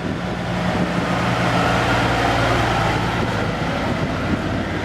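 Heavy vehicle engine running at a steady pitch.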